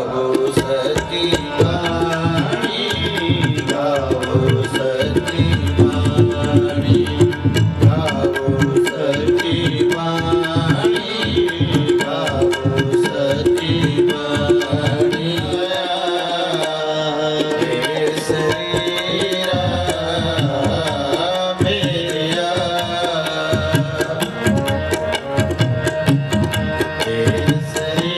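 Sikh kirtan: tabla played with quick, dense strokes under two harmoniums, with voices singing the hymn.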